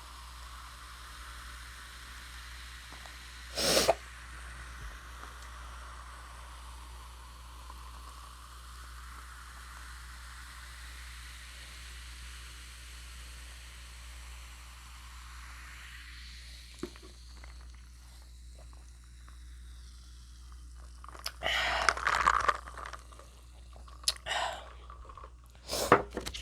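A drink being poured steadily into a cup, the pitch of the pour rising as the cup fills, stopping about two-thirds of the way through. A few loud short noises follow near the end.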